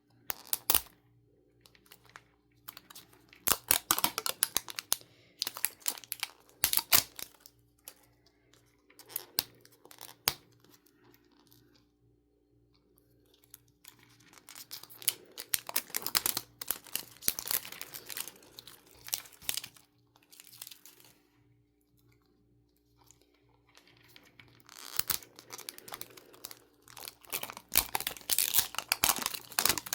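Toy packaging being torn open and crinkled by hand in irregular bursts of rustling and crackling, with pauses between them, over a faint steady hum.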